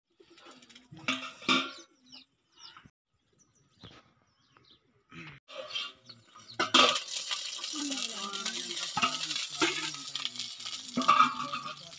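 Rice-batter pancake frying in an iron kadhai over a wood fire. The first half is quiet apart from a few metal knocks; about halfway through, as the steel lid plate comes off the pan, a loud, steady sizzle sets in and runs on.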